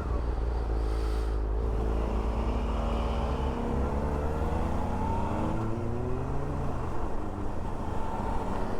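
Suzuki V-Strom 650's V-twin engine running under way, under a heavy low wind rumble on the microphone. The engine pitch rises for a few seconds, from about two seconds in, then falls back.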